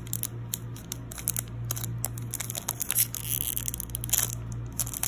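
Foil booster pack wrapper crinkling as it is handled and flexed, a string of short sharp crackles over a steady low hum.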